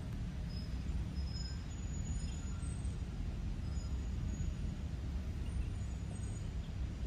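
Steady low rumble of wind buffeting the microphone, with a few faint, brief high-pitched chirps.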